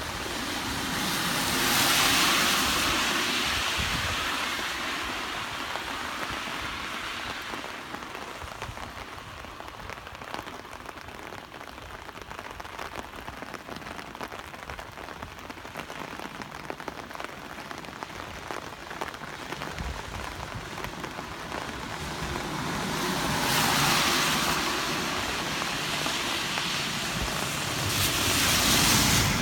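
Steady rain falling on a paved road, with cars passing on the wet asphalt: tyre hiss swells and fades about two seconds in, and twice more near the end as vehicles go by.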